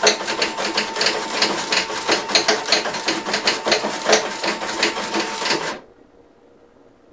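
Inline label-converting line, an Austik Opal 6 rotary die-cutter feeding a thermal transfer printer, running: a dense, rapid clatter of clicks over a steady whine. It cuts off suddenly near the end, leaving faint room tone.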